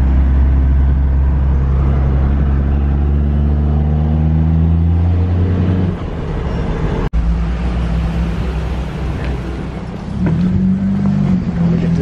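In-cab drone of a first-generation Dodge Ram's Cummins diesel under way, a steady low hum. About halfway the sound breaks off abruptly with a brief dropout, and a different, rougher steady vehicle hum follows.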